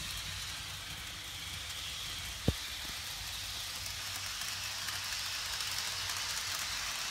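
Athearn HO scale model train, GP38-2 diesel locomotive and cars, running on its track with a steady low hiss of motor and wheels. A single sharp knock sounds about two and a half seconds in.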